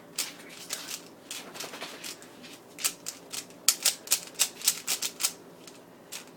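Rubik's cube being turned fast in a timed speed-solve: rapid clicks of the plastic layers snapping round, coming in quick runs that grow louder and closer together in the second half.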